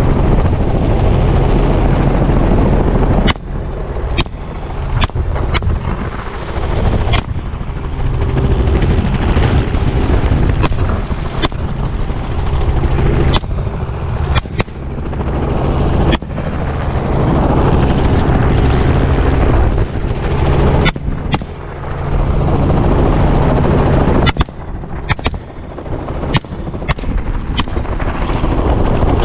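Helicopter running steadily overhead while rifles fire from it at running hogs: single shots and quick pairs from a few seconds in, then a fast string of shots near the end, about two dozen in all.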